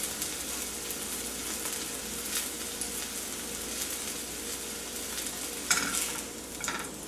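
An eggplant slice pan-frying in oil, sizzling and crackling steadily. A sudden louder burst comes about five and a half seconds in and a smaller one a second later, after which the sizzling is a little quieter.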